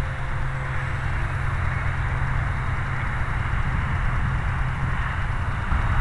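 Wind buffeting the microphone: a steady low rumble with an even hiss above it.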